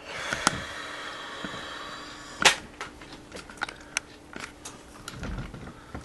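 Handling noise from a video camera being picked up and moved by hand: a rustling rub for the first couple of seconds, then a series of sharp clicks and knocks, the loudest about two and a half seconds in.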